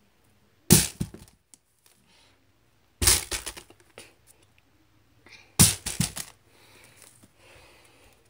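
Plastic water bottle landing on carpet three times, about two and a half seconds apart: each landing is a sharp knock followed by a few smaller knocks as the bottle bounces and tumbles over.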